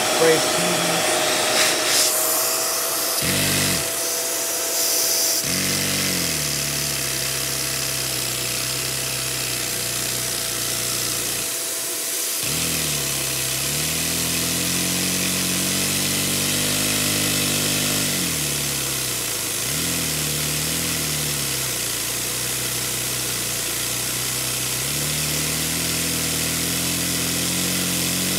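Dyson Ball DC41 Animal vacuum cleaner running with a steady whine while its suction drives a small Lego vacuum engine, which runs with a fast buzz. The buzz rises and falls in pitch, cuts out twice in the first few seconds and once around twelve seconds in, and dips briefly later, as the engine stalls and restarts.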